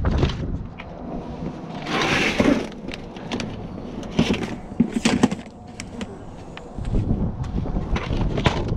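Rummaging through boxes of stored belongings: rustling, with a longer rustle about two seconds in, and irregular knocks and clatters as items are moved.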